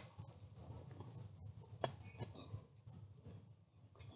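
A high, steady insect trill that breaks into short pieces near the end. Under it, a wooden stick scrapes and knocks in a burrow in the soil, with one sharper knock about two seconds in.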